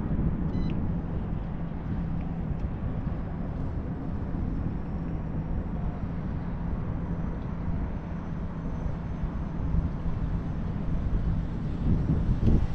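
Wind buffeting the microphone in a steady low rumble, with a faint steady hum underneath.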